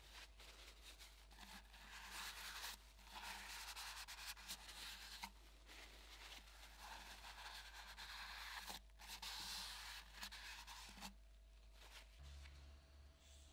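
Faint rustling and rubbing of a cloth handled in gloved hands, coming and going in short spells.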